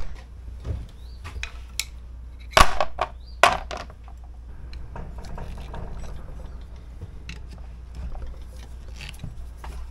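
Metal tools tapping on the cast-iron hydraulic pump housing of a John Deere Model M: several sharp metallic taps in the first few seconds, the loudest about two and a half and three and a half seconds in, as a small tool is used as a drift to drive apart halves stuck on a locating dowel. After that comes quieter scraping and handling of metal parts.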